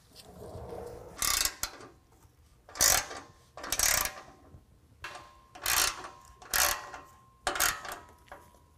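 Ratchet clicking in about six short spells as M12 bolts are run down and tightened, fastening a steel bull bar to its mounting brackets.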